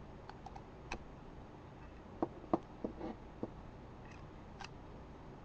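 Scattered small clicks and taps of a metal bobby pin being handled while its rubber end tip is cut off.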